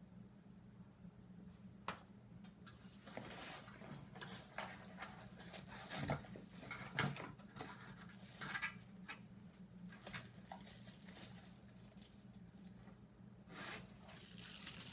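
Packaging being handled during an unboxing: scattered rustles, scratches and small knocks, with a steady low hum underneath.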